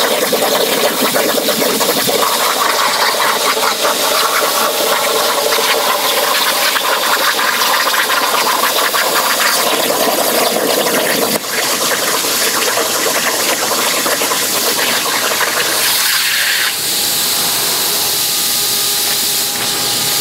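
Plasma torch on a Torchmate 4800 CNC plasma table cutting a straight line through 11 gauge mild steel at about 150 inches per minute: a loud, steady rushing hiss. It dips briefly about 11 seconds in, and about 17 seconds in it changes to a slightly quieter, steadier hiss with a faint hum.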